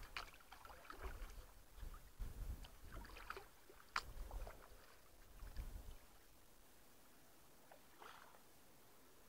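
Faint, irregular knocks, clicks and scrapes of a canoe being handled and set up, with one sharp click about four seconds in; the handling stops about two-thirds of the way through.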